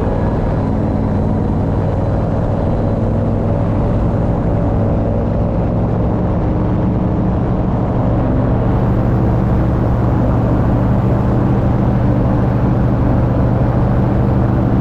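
Paramotor engine and propeller running at a steady cruise with a constant low drone.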